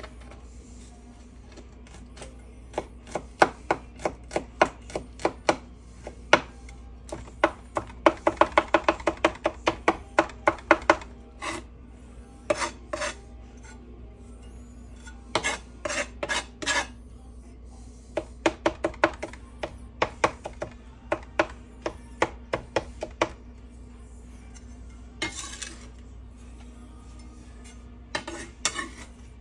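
Chef's knife mincing garlic on a wooden cutting board: sharp knocks of the blade on the board, coming in quick runs of about five a second with pauses between.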